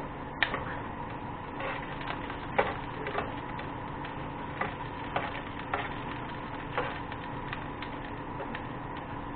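Light knocks and clicks at irregular intervals, roughly one or two a second, over a steady background hum; the loudest knocks come about half a second and two and a half seconds in.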